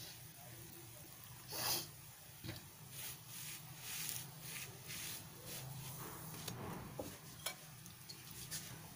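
Short dry scrapes and rubs as a hand presses and turns a stuffed paratha on a tawa, several in a row, the loudest about two seconds in, over a steady low hum.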